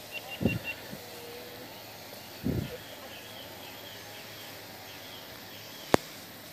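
Outdoor garden ambience: a steady faint hiss with a few short high chirps near the start and a faint repeating chirping later on. Two short low thumps on the microphone come early, and a single sharp click near the end is the loudest sound.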